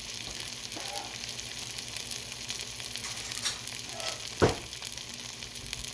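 Chaffle batter sizzling and crackling inside a closed Dash mini waffle maker, a steady hiss, with one sharp knock about four and a half seconds in.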